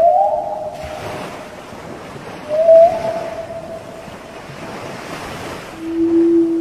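Three drawn-out whale calls: the first two glide up and then hold, and the third, near the end, is a lower, steady tone. Wind on the microphone and lapping sea water run underneath.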